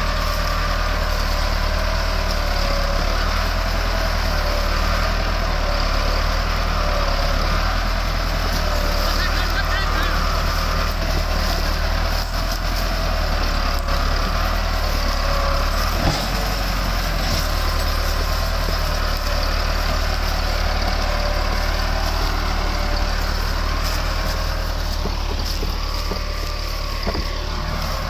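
Massey Ferguson 385 tractor's four-cylinder diesel engine running steadily as it hauls an overloaded sugarcane trolley, with one short knock about halfway through.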